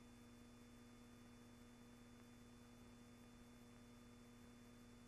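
Near silence: a faint steady hum and hiss with no other sound.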